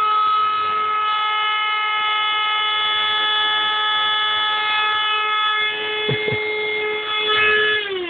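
A parrot holding one long, steady, reedy note with several overtones, sliding down in pitch as it trails off at the end.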